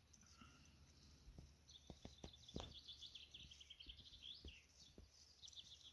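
Faint outdoor quiet with a small bird singing in the distance: rapid high chirping trills starting about two seconds in, with a few soft knocks.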